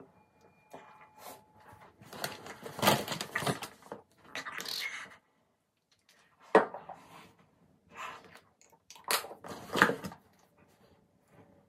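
Hands rubbing and patting skin and handling items on a countertop: irregular bursts of rustling and rubbing, then a few sharp knocks.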